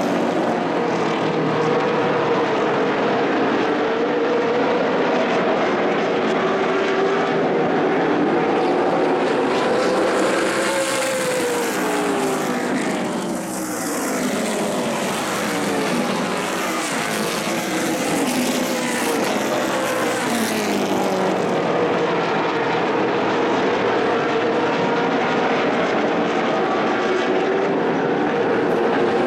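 Several short-track stock car engines running hard in a pack, their pitch repeatedly rising on the straights and falling into the turns. The sound dips briefly about halfway through as the cars run the far side of the track.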